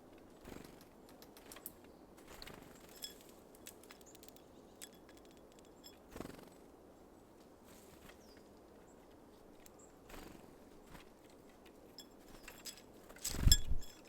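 Small birds at a seed feeder: scattered light clicks and ticks of pecking and seed handling, with a few faint high chirps. Near the end comes a much louder thump and flutter.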